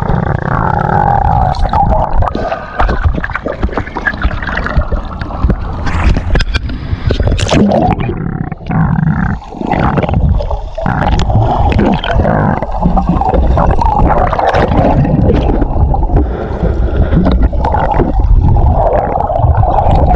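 Muffled water noise from a camera in or at the surface of the sea: water sloshing and gurgling against the housing, with many short knocks and bumps.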